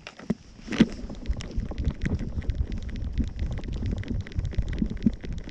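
Wind buffeting and rubbing noise on a 360 camera strapped to a small dog's harness as the dog moves: a steady low rumble with dense, irregular scratchy clicks, and a single louder knock about a second in.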